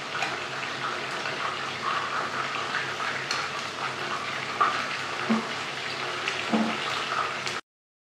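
Chicken pieces sizzling as they fry in oil in a pan, with metal tongs now and then clicking and scraping against the pan as they are turned. The sound cuts off abruptly near the end.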